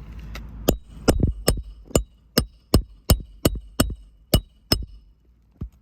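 Hammer blows in asphalt-shingle roof repair: about a dozen quick, sharp strikes, two or three a second, then one last strike near the end.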